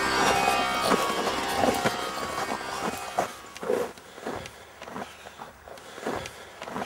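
Guitar-driven rock music fading out over the first few seconds, followed by a loose run of irregular thumps and scuffling knocks.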